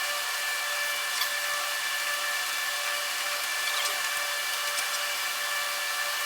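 A small electric motor running steadily: an even whine over a hiss, with no change in speed.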